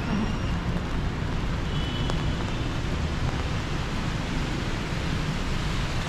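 Steady hiss of rain and traffic on a wet city street, with a low, fluttering rumble underneath.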